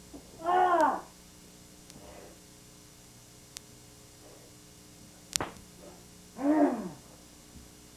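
Two short karate kiai shouts during a kata, each a loud yell that rises and then falls in pitch: one just after the start and one about six seconds later. A single sharp snap comes about a second before the second shout.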